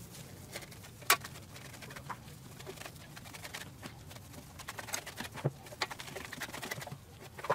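Gloved hands pressing and smoothing raw minced meat around a whole cauliflower on a stainless steel tray: soft wet pats and small clicks, with a sharper click about a second in.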